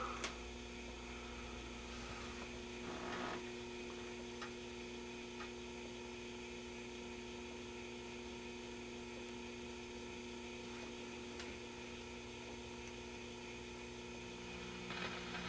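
Steady low mains hum from a just-switched-on GE 212 vacuum-tube radio, its tubes lit and no station coming through, over a faint hiss.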